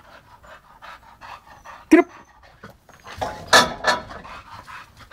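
A bulldog panting hard and fast from exertion at a spring pole, several breaths a second. One short, loud sound about two seconds in, and a louder noisy stretch of about a second past the middle.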